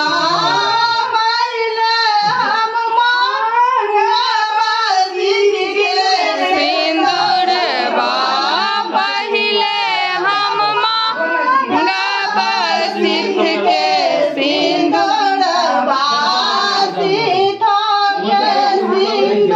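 A group of women singing a traditional Hariyali Teej puja song together in chorus.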